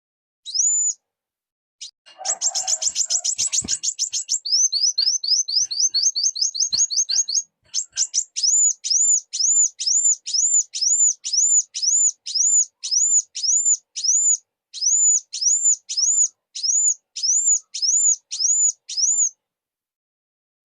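Kolibri wulung (sunbird) calling with high, thin notes. About two seconds in comes a fast trill, then a quick run of rising notes, then a steady series of rising-and-falling whistled notes at about two and a half a second.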